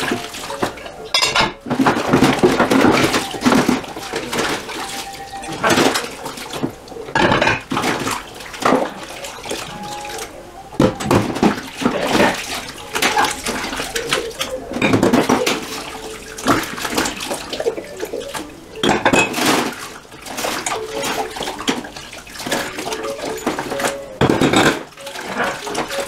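Dishes being washed by hand in a stainless steel sink: water sloshing and splashing as plates and mugs are scrubbed with a sponge. Ceramic plates and mugs knock and clink irregularly against each other and the steel as they are handled and set down.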